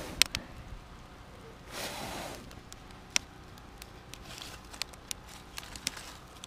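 Newly lit kindling fire in a metal campfire pit crackling with scattered sharp snaps and pops, the loudest just after the start. Paper and sticks rustle as they are pushed in by hand, with a brief whoosh about two seconds in.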